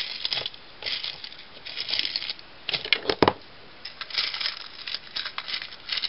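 Hands rummaging through a supply of chunky craft beads: irregular rustling with scattered small clicks, and one sharper click a little after three seconds in.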